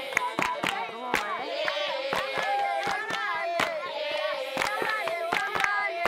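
A group of women and children singing together and clapping their hands along with the song.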